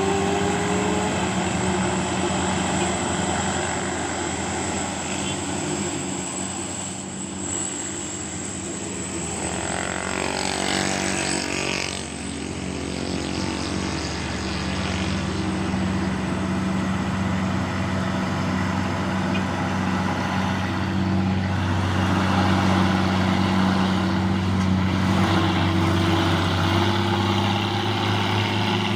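Heavy truck diesel engines labouring steadily up a steep grade, with a vehicle passing about ten seconds in, its pitch falling as it goes by.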